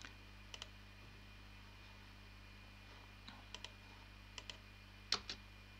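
Computer mouse button clicking a few times, single clicks and quick pairs, the loudest about five seconds in, over a faint steady hum.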